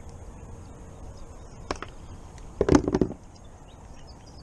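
A single tap, then about a second later a quick cluster of thumps and knocks as a mulloway (jewfish) is handled on a plastic kayak.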